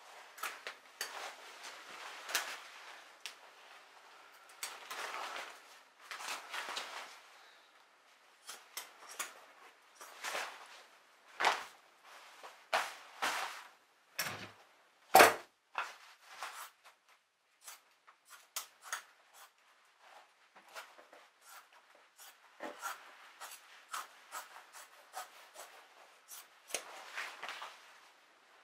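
Fabric rustling as it is handled, with scattered light clicks and taps of hands and a tool on a wooden bench and plywood disc. One sharp knock about halfway through is the loudest sound.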